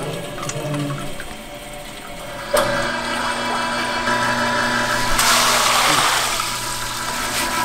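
A stainless-steel rice-washing machine with a stirring paddle hums steadily as it churns soaked rice in water. About five seconds in, a loud rush of water and wet rice gushes out of its outlet pipe into a plastic colander.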